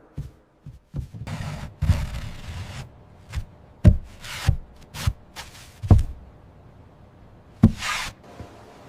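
Irregular knocks and thuds of building work on wood, about a dozen in all, with bouts of scraping between them.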